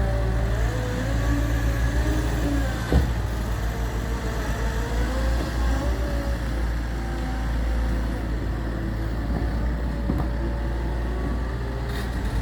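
Gehl V420 skid steer loader's diesel engine running while it works, with a whine that rises and falls and a single sharp knock about three seconds in.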